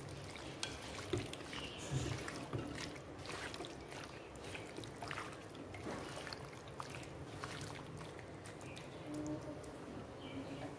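Hands squeezing and kneading raw chicken pieces coated in chili powder and ginger-garlic paste in a clay pot: soft, irregular wet squelches and small clicks.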